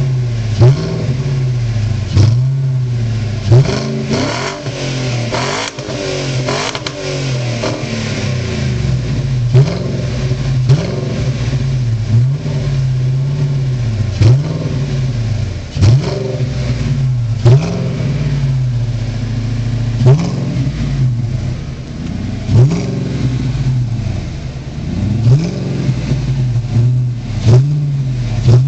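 Audi A6 4B's 4.2-litre V8, fitted with a home-built exhaust, idling and being revved in short, sharp throttle blips every second or two. There is a longer, higher rev about four to seven seconds in.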